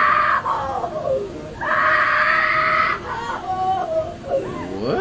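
Repeated high-pitched screaming: one held scream breaks off, another is held for about a second and a half, and wavering, sliding wails between them rise steeply into a third scream at the end.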